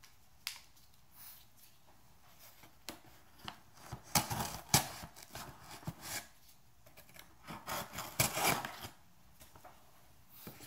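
Small credit-card folding knife cutting and scraping through packing tape on a cardboard box, with a sharp click about half a second in and two louder stretches of rough slicing and tearing in the middle and later on.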